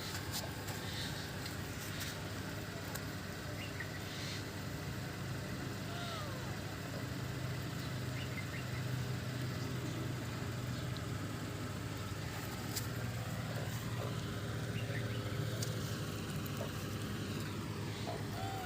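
Steady low motor-like hum, with a few faint short calls and small clicks over it.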